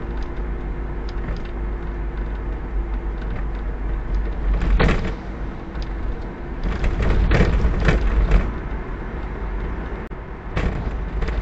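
Car driving, heard from inside the cabin: a steady engine and road rumble, with clusters of knocks and rattles about five seconds in, again around seven to eight seconds, and near the end.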